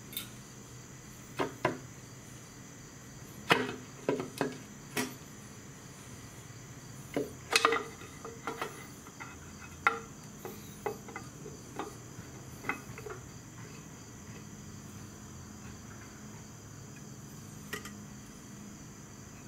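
Irregular sharp knocks and clinks of hand tools against the metal of a motorcycle engine's clutch cover as it is worked loose, about a dozen strikes, with one last knock near the end, over a steady high-pitched drone.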